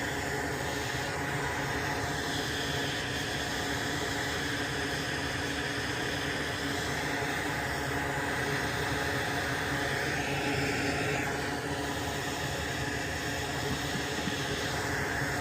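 Steady background hum and hiss with no distinct events, of the kind a fan or air-conditioning unit makes in a workshop.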